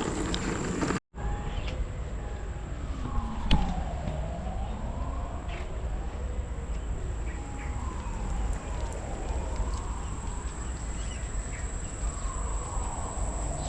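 A wailing tone that glides down and back up in pitch again and again, every couple of seconds, like a siren, over a steady low rumble.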